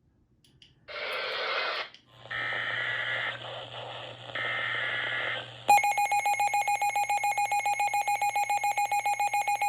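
EAS alert opening: about a second in, the SAME digital header plays as harsh, screechy data bursts. Nearly six seconds in, the loud two-tone EAS attention signal starts, pulsing rapidly, announcing the tornado warning that follows.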